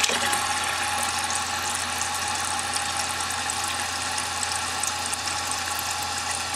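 New plastic float-and-rod ballcock fill valve refilling a toilet tank: a steady hiss of water through the valve with a thin steady tone over it, and the refill tube's stream splashing into the rising water.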